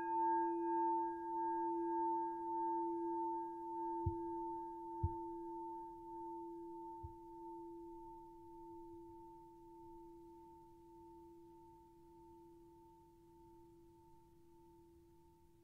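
A meditation singing bowl ringing out after a single strike. It has a deep hum and a brighter overtone that waver slowly as they fade, while the higher partials die away first. There are a few faint low thumps about four, five and seven seconds in.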